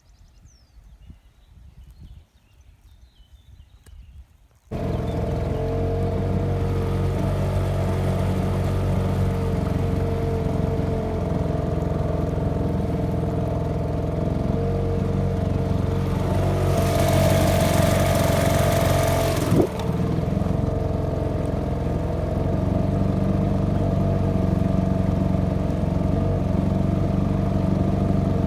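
A steady engine drone that starts abruptly about five seconds in and keeps running evenly, with a hissing swell midway and a single sharp click shortly after. Before it, a few faint clicks over near quiet.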